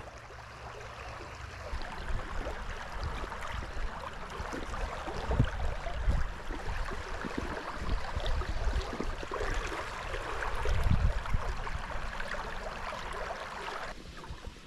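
Shallow river water running over a rocky riffle: a steady rushing, with scattered low thumps and rumbles. It drops off sharply near the end.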